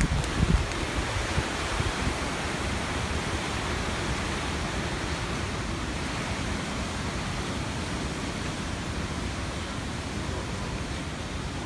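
Waterfall rushing steadily, with a few low rumbles on the microphone in the first half second.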